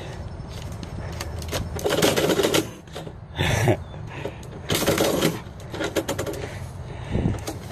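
Metal door mail-slot flap clacking and envelopes rustling, several times over, as letters are pushed in through the slot and shoved back out from the inside.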